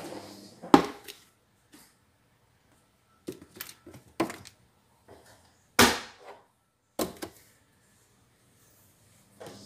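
Kitchen cupboard doors and their contents being handled: about seven short, sharp knocks and clacks a second or so apart, with quiet gaps between them. The loudest knock comes about six seconds in.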